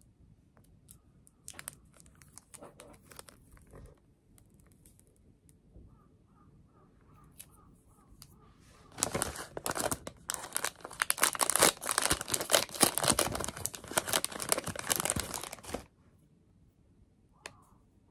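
Clear plastic wrapper crinkling and tearing as a roll of decorative paper tape is pulled out of its cellophane bag. It starts about halfway in, runs loud for about seven seconds, then stops suddenly. Before it come a few soft clicks from the tape rolls being handled.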